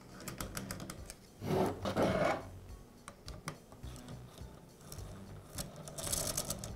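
Hex key turning out the socket-head screws that hold the cap on a Makita nailer: light metal clicks and scraping rubs, with louder scrapes about one and a half seconds in and again near the end.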